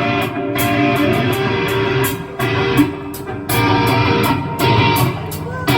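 Live rock band playing an instrumental passage: electric guitar strumming over bass guitar and drums, with cymbals keeping a steady beat.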